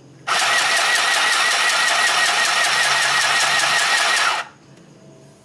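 Qualimate mini electric sewing machine running and stitching through cloth, its small motor and needle going at a fast even rhythm. It starts just after the beginning and stops suddenly after about four seconds as the foot pedal is released.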